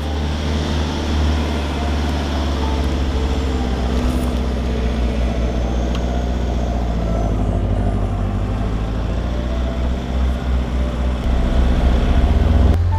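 Four-wheel drive on a dirt bush track: engine running and tyres rolling over the dirt in a steady rumble, a little louder near the end.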